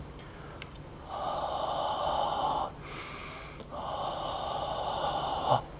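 A person blowing into the breath inlet on top of a small dual-LCD breathalyzer: two steady blows of under two seconds each, with a short breath between them.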